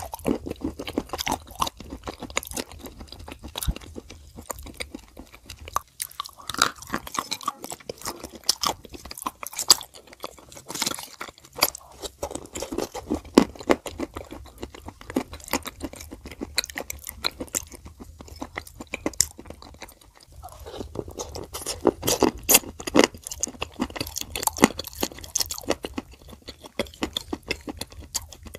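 Close-miked chewing and crunching of edible Turkestan clay with clay paste: dense, crackly crunches, with brief lulls about 6, 12 and 20 seconds in.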